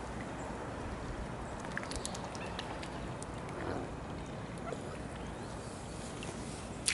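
Mallard ducks quacking softly over a steady outdoor background noise, with a few faint clicks.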